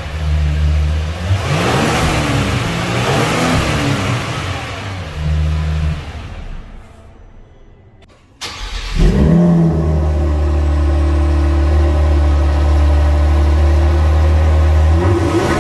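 Kia Stinger 3.3 twin-turbo V6 exhaust, first on the stock system, revved about three times and then dying down to quiet. After a cut it comes back abruptly, now through a custom Sporttig exhaust with its valves closed: a brief loud flare settling into a steady idle, with a rev beginning at the very end.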